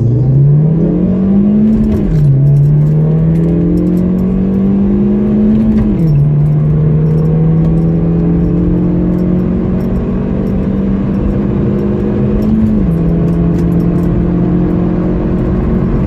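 Opel Corsa C GSi's 1.8 16-valve four-cylinder engine accelerating hard through the gears. The engine note climbs, then drops sharply at three upshifts, about 2, 6 and 13 seconds in, and each gear pulls longer than the one before.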